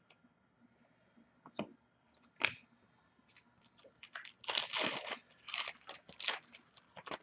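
Crinkling and tearing of a trading-card pack's foil wrapper being handled and opened, with a few sharp clicks before it and a dense run of crackle in the second half.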